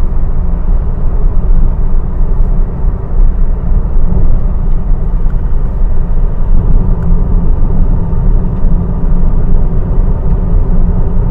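Steady low rumble of a car driving at road speed, engine and tyre noise heard from inside the cabin.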